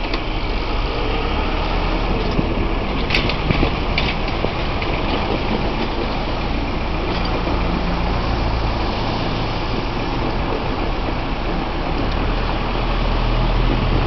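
Road traffic at a level crossing: car and van engines idling and pulling away, a steady low rumble with road noise, and a few short clicks about three to four seconds in.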